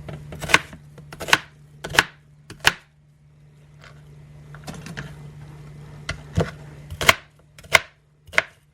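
Kitchen knife chopping an onion into thick pieces on a cutting board: four sharp strikes about one a second, a pause of about three seconds, then five more strikes.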